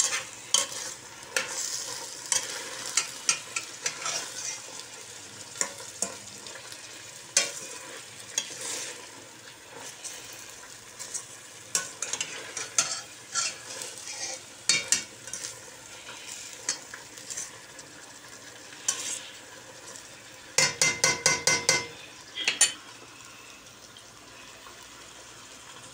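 White beans frying in oil and pepper paste in a stainless steel pot, a steady sizzle, while a spoon stirs and scrapes through them with irregular clicks against the pot. About twenty-one seconds in comes a quick run of sharp clicks, and toward the end the clicks thin out, leaving mostly the sizzle.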